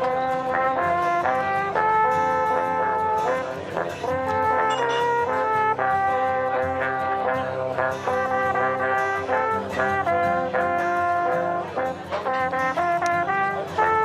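Three wooden alphorns played together: a melody of held notes sounding in harmony, changing note about every half second to a second.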